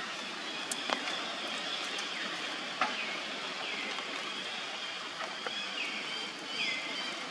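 Steady background hiss with a few soft clicks; from about three seconds in, faint high squeaks that drop in pitch repeat every second or so, as a baby monkey calls.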